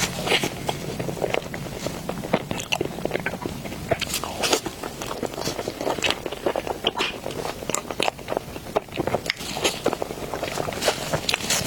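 Close-miked eating of an oversized snow skin mochi (xuemeiniang): repeated bites and chewing, with irregular wet mouth clicks and smacks throughout.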